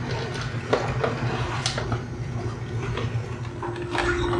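Nama J2 slow juicer switched on and running, its auger crushing beets with irregular cracks and clicks over a low hum; a steady motor tone comes up near the end.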